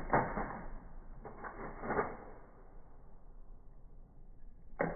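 Slowed-down 12-gauge pump-action shotgun: a dull bang just as it begins, then two mechanical clacks about one and two seconds in, the pump being racked to chamber the next shell, and another sharp bang near the end.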